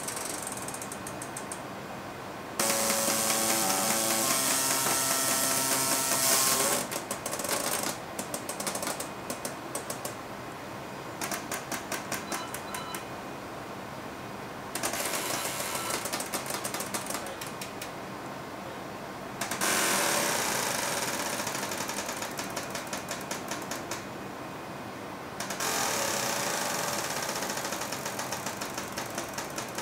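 Pneumatic robot arm moving under a 5 kg load: its control valves chatter in trains of rapid clicks, alternating with long hissing bursts of compressed air venting, the loudest starting about three seconds in.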